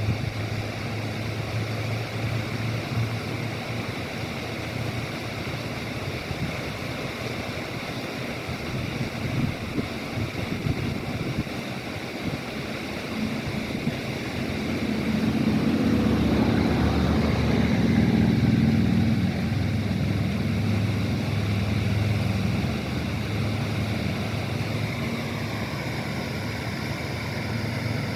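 Waterfall water rushing in a steady, even noise, with wind buffeting the microphone. A low rumble swells for a few seconds around the middle.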